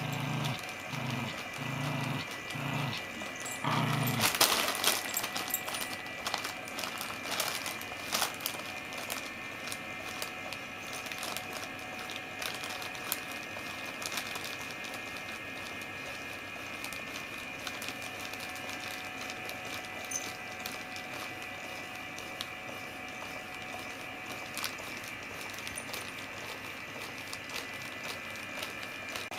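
Battery-powered cat toy, a crinkly potato-chips bag with a furry piece that moves in and out of it, running with a steady high motor whine. Low thumps about twice a second over the first four seconds, then a burst of bag crinkling around four seconds in, with scattered light clicks.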